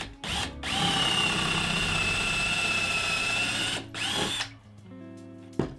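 Cordless drill boring a 1/4-inch pilot hole into a pine 2x4. A short blip of the trigger, then about three seconds of steady running with a steady high whine, a second brief burst just after, and a sharp click near the end.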